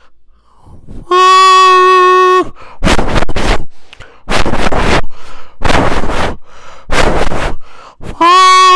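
A man imitating a train with his voice through cupped hands: a steady horn-like hoot held for about a second and a half, then a run of short chugging puffs, and the hoot again near the end.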